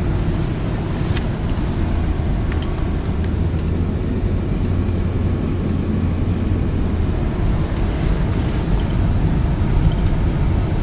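Road noise heard inside a moving car on a snow-covered road: a steady low drone of engine and tyres, with scattered faint high ticks.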